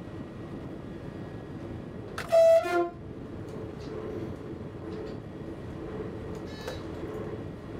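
Passenger train's horn gives one short two-tone blast about two seconds in, a higher note dropping to a lower one. Under it is the steady running noise of the train on the track.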